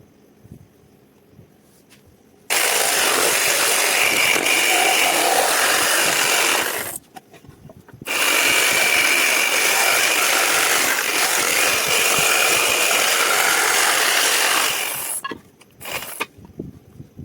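A power tool working wood, running with a steady high whine in two runs: one starting about two and a half seconds in, and a longer one after a short pause, each cutting off suddenly.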